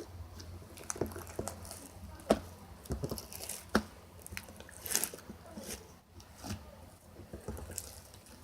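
Pink slime being squished and worked by hand: irregular wet squelches and little clicking pops, the loudest a little over two seconds in.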